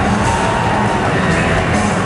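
Loud rock music with guitar, playing steadily.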